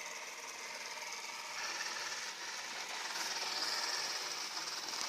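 Homemade robot vacuum cleaner running, its motors and brushes giving a steady whirring, scraping noise that grows a little louder.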